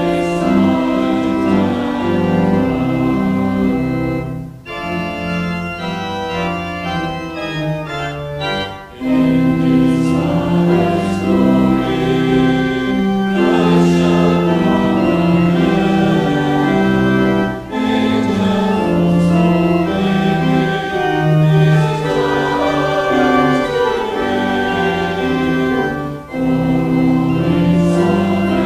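Church organ accompanying a choir singing a hymn: sustained chords moving in phrases with brief breaks between them, and a thinner, quieter stretch about five seconds in.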